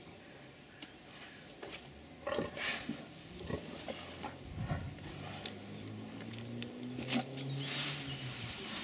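A dog sniffing in short bursts at a hedge, then leaves and twigs of a box shrub rustling near the end as it rears up into the bush. A low steady hum runs underneath through the middle.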